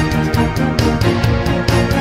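Instrumental theme music with a steady, quick drum beat.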